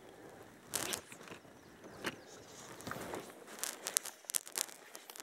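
Cloth rustling and scraping against a neck-hung camera while fly line is stripped in by hand: a few short scrapes, then a quick run of sharp scratches about four seconds in.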